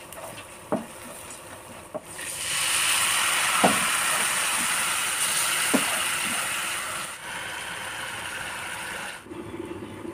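Spatula clicking against a frying pan of onion-tomato masala. About two seconds in, a loud sizzle starts suddenly as a little water goes into the hot oil and spices, with a few more spatula knocks. The sizzle eases after about five seconds and cuts off near the end.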